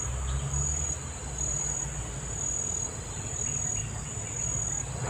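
A steady high-pitched insect chorus, its shrill note swelling and fading in even stretches about a second long, over a low rumble.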